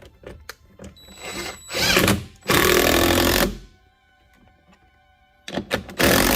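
Power drill driving a screw through a metal closet-rod bracket into a door jamb. It runs for about two seconds, stops, and starts again near the end, with a few small clicks of handling before it.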